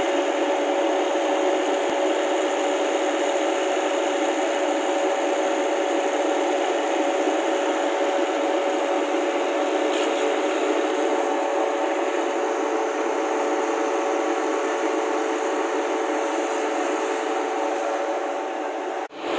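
Truck-mounted disinfectant mist cannon running: its large fan blowing a steady rush of air with a constant hum of several tones. The sound cuts out briefly near the end.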